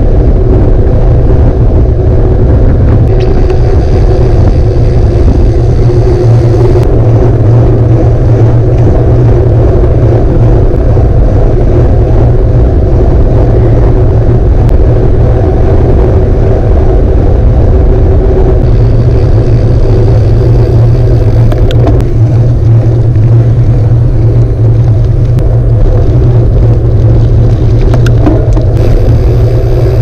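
Wind buffeting a handlebar-mounted action camera, with tyre and road rumble from a gravel bike rolling on pavement: a loud, steady low rush, with a few sudden shifts in the hiss.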